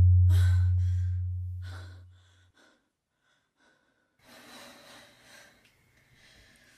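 A young woman breathing hard and unsteadily in short gasps, just startled awake, over a low musical drone that fades away over the first two seconds. After a pause, a long sigh follows and then a softer breath.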